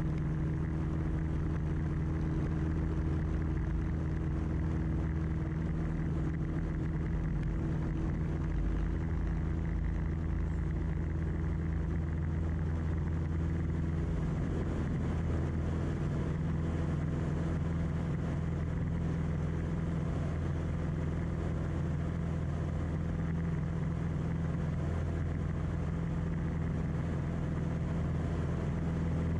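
Single-engine Beechcraft Musketeer's piston engine and propeller running steadily at takeoff power, heard from inside the cockpit, with no change in pitch through the takeoff roll and climb-out. A rattle from the loosely mounted camera is mixed in.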